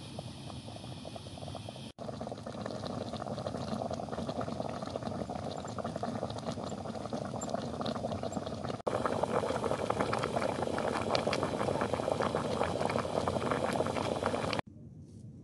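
Water boiling hard in an MSR heat-exchanger pot on a canister gas stove, bubbling around a food pouch being heated in it. The bubbling gets louder about nine seconds in and cuts off suddenly shortly before the end.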